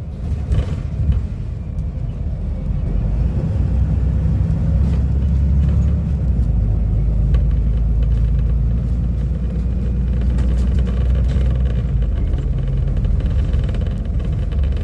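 Diesel engine of a Volvo B250RLE bus with a Caio Millennium IV body running with a deep low rumble, getting louder over the first few seconds and then holding steady.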